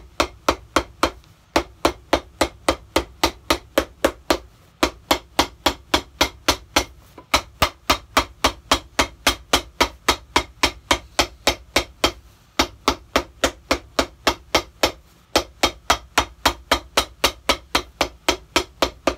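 Cobbler's hammer beating along the edge of a leather shoe sole held in the hand: quick, even strikes about four a second, with a brief pause every few seconds.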